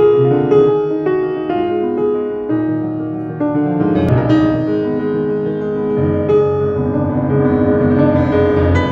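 Solo grand piano played live: a classical piece with many quick notes, a loud struck chord about four seconds in, and fuller bass notes after it.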